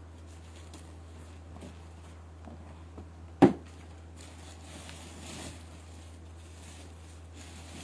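A steady low hum with faint rustling, and one sharp knock about three and a half seconds in.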